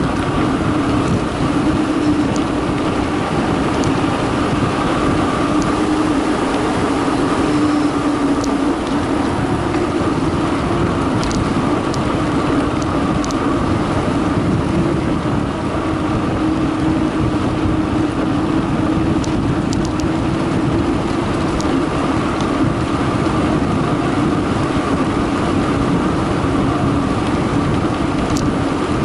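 Mountain bike descending fast on a concrete road: tyres rolling on the concrete and wind on the microphone give a loud steady noise with a low hum, and now and then small ticks and rattles.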